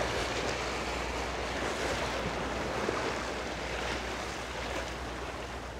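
Sea surf washing steadily against the rocks of a breakwater.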